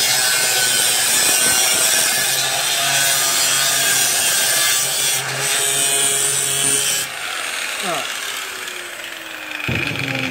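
Angle grinder grinding steel angle iron at full speed, a loud steady grinding that stops about seven seconds in, the disc then winding down with a falling whine. A new sudden sound starts just before the end.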